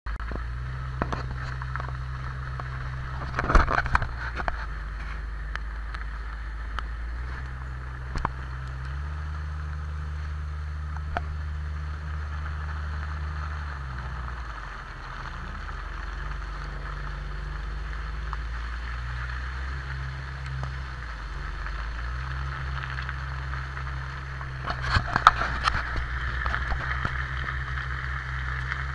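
Off-road vehicle's engine running as it drives along a muddy dirt track, its low hum stepping up and down in pitch several times as the engine speed changes. Clusters of sharp knocks and rattles about four seconds in and again near the end.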